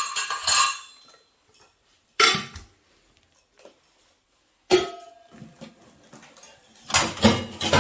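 Miniature toy cooking utensils and dishes clinking and clattering as they are handled and set down: a cluster of knocks at the start, single knocks about two and five seconds in, and a quick flurry near the end.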